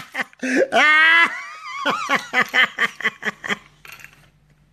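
A person laughing: after a short vocal sound at the start, a quick run of short pitched 'ha' pulses fades out near the end.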